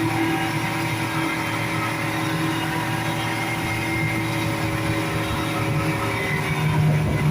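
Speedboat engine running steadily, its hum holding one pitch over a constant rush of wind and water noise.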